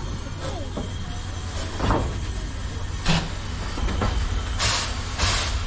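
Steam train at the station: a steady low rumble with three short bursts of hissing, one about three seconds in and two close together near the end.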